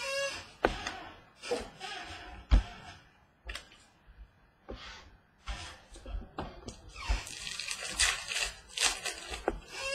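Trading-card packs being opened and the cards handled: wrappers crinkling and cards rustling against each other in short, irregular bursts, with one thump on the table about two and a half seconds in.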